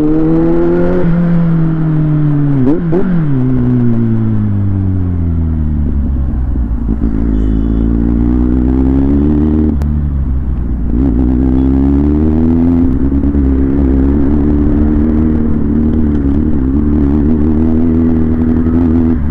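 Kawasaki Z800's inline-four engine running under way: its pitch falls as it rolls off, with one short sharp blip of revs about three seconds in, then climbs twice as it accelerates and settles to a steady cruise for the rest.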